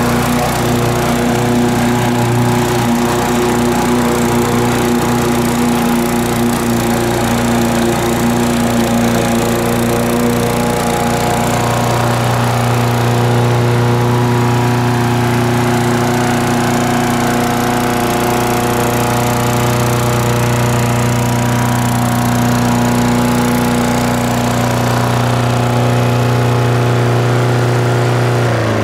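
Briggs & Stratton 550e single-cylinder engine on a walk-behind rotary lawn mower, running at a steady speed with the blade spinning.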